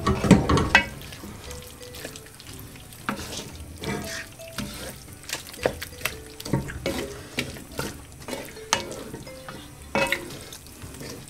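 Wooden spoon stirring and scraping beef cubes and onions around a metal pot, with irregular scrapes and knocks that are loudest in the first second, while the food sizzles.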